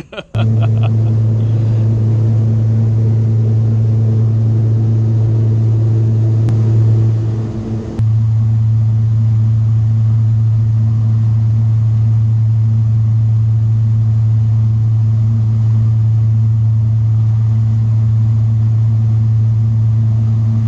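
Boat engine running at a steady cruise, heard from inside the cabin as a loud, even low drone. About seven or eight seconds in the sound dips briefly, and after that its higher tones drop away.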